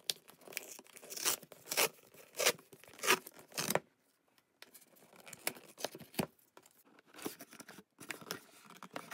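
Cardboard mailing box's tear strip being ripped open by hand: a run of loud ripping strokes over the first four seconds. After a short pause come fainter rustles and scrapes of cardboard as the box is opened.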